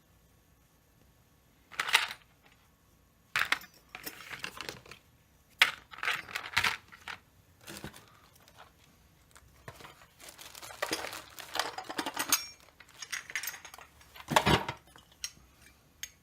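Small metal and plastic chainsaw parts handled and fitted by hand: irregular clicks, clinks and short rattles, the sharpest about two seconds in, halfway through and near the end.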